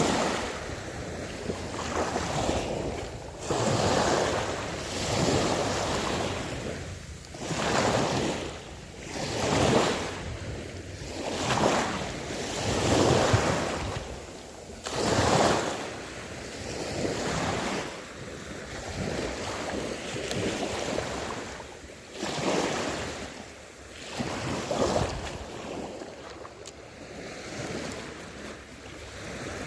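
Small sea waves washing in against the shore in repeated surges, one every second and a half to two seconds, stronger in the first half.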